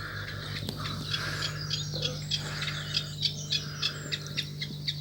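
Small birds chirping in short, repeated calls, with a steady low hum underneath.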